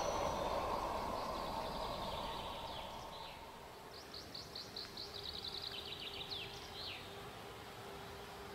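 A passing diesel-hauled train fading into the distance, its rumble dying away over the first few seconds. Then a songbird sings a short, rapid phrase of repeated high notes ending in a trill.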